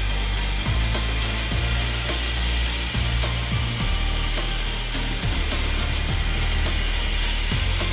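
Background music with a low drum beat, roughly two beats a second, over a steady high hiss.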